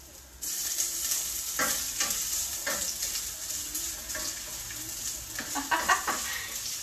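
Sliced ginger dropped into hot oil in a stainless steel pot, bursting into a loud, steady sizzle about half a second in. A wooden spatula stirs and scrapes it as it keeps frying.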